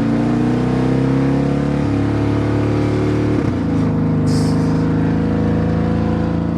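Car engine, heard from inside the cabin, pulling under acceleration while it has a misfire that the scan tool pins on cylinder 4. Its pitch rises, then steps down twice, at about two and three and a half seconds in, as the transmission shifts up, and it then holds steady. A brief hiss comes about four seconds in.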